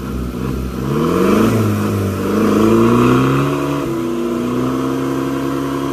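SUV engine revving hard under load during a tow-strap recovery attempt on a vehicle stuck in mud. The pitch climbs about a second in, holds high with a brief dip near four seconds, then stays up.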